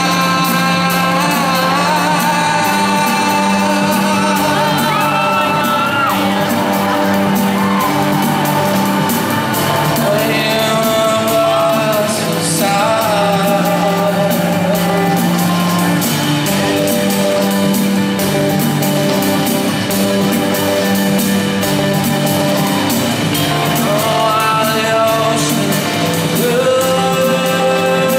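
Live rock band playing in a large hall, heard from the audience: a repeating bass line under drums, guitars and keyboards, with a sung vocal line above.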